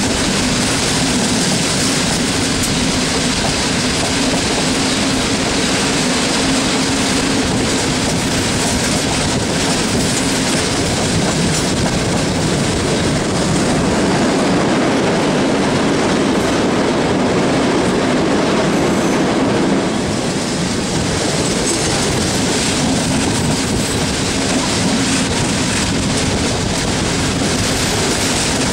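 Passenger railway coach running at speed, its wheels clattering over the rails, heard through an open coach window. About halfway through, the noise swells into a louder rumble as the train crosses a steel truss bridge, then drops back suddenly when it leaves the bridge.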